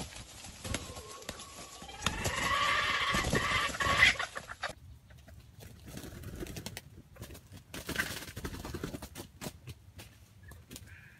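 Wild junglefowl rooster calling: a loud, pitched call runs from about two seconds in until nearly five seconds in, then fainter calls and small rustling sounds follow.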